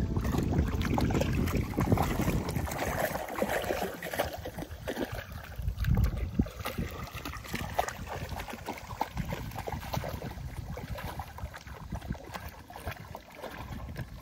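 Dogs wading and paddling through shallow seawater, with irregular splashing and sloshing. Wind buffets the microphone with a low rumble in the first few seconds.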